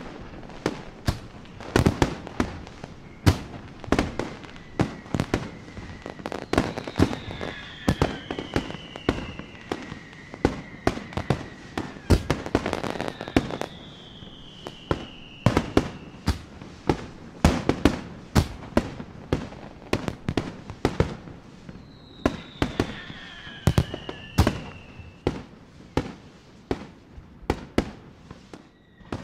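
Big fireworks display: aerial shells bursting in quick, irregular bangs, several a second, with three long whistles that fall in pitch.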